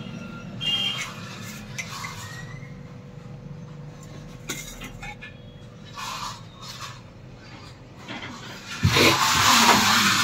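A steel knife scraping and squeaking on a steel plate, followed by scattered clicks and knocks. About nine seconds in, a loud rushing noise starts and lasts to the end.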